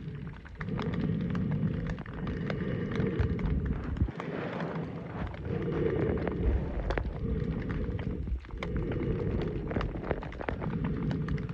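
Heavy, uneven rumble of wind buffeting the microphone over the rush of a mountain stream, with scattered clicks and crackles.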